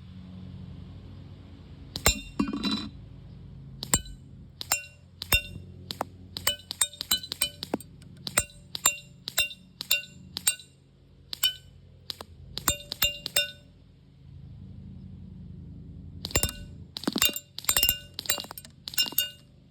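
Airsoft BBs striking a hard target that rings with a short metallic clink at each hit. The hits come singly at first, then in quick strings of several a second with pauses between the strings.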